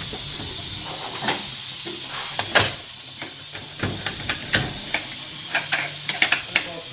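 A steady hiss with a series of short, sharp metallic clicks and clinks, more of them in the second half, as transmission parts are handled during the teardown.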